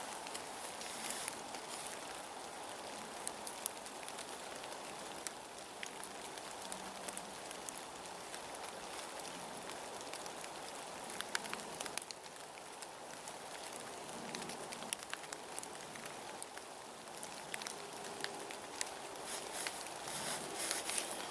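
Steady rain falling in woodland, a constant hiss with many scattered small ticks of drops.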